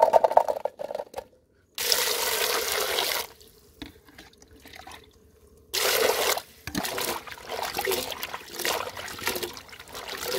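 Cut green eggplant pieces clattering into a metal pot, then water poured into the pot in two steady splashing rushes, about two seconds in and about six seconds in. After that, hands slosh and rub the eggplant pieces in the water.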